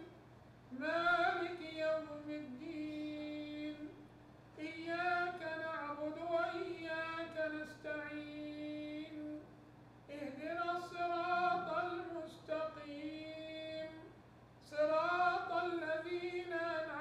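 A woman singing unaccompanied, in four long phrases of about three seconds each with short pauses between, the held notes bending in pitch at the start of each phrase.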